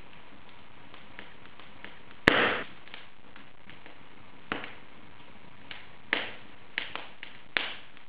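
Wood fire in an open fireplace crackling: a steady low hiss with scattered sharp pops. The loudest pop comes a little over two seconds in, and a cluster of smaller pops follows near the end.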